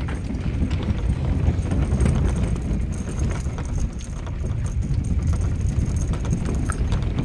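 Footsteps on the wooden planks of a boardwalk pier, over a steady low rumble of wind on the microphone.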